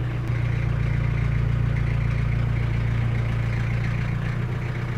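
Iveco Daily 35-8 van's diesel engine running steadily at low revs through its newly fabricated custom exhaust as the van creeps along.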